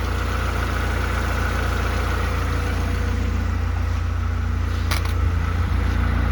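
1996 Honda Accord engine idling steadily, freshly fitted with a new timing belt and warming up. A single sharp click sounds a little before the end.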